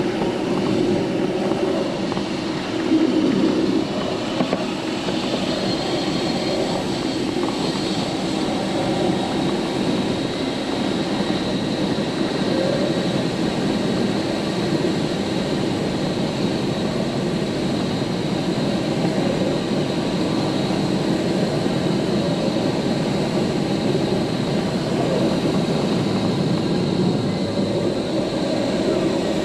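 Steady rush of air over the canopy of an ASW 27 glider flying fast, heard from inside the cockpit.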